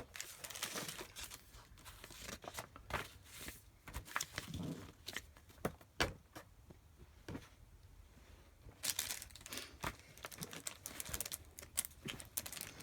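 Plastic packaging rustling and crinkling as 3D-printer kit parts are unwrapped and handled, with scattered sharp clicks and knocks of small parts. The loudest click comes right at the start, another about six seconds in, and the rustling is densest about nine to eleven seconds in.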